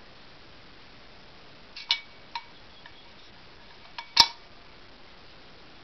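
Small metal washers and a nut clinking as they are handled and threaded on by hand. There are two light clicks about two seconds in and a single sharper click a little past four seconds.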